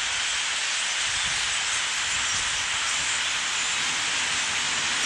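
A huge flock of blackbirds calling all at once, thousands of voices merging into a steady, even hiss much like rainfall.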